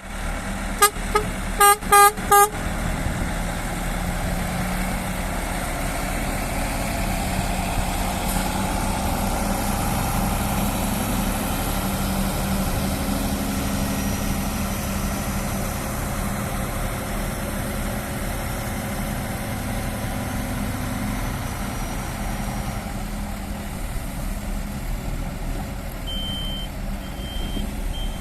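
Four short horn toots, then a 6x6 off-road vehicle's engine running steadily. Near the end a high-pitched beep starts, repeating.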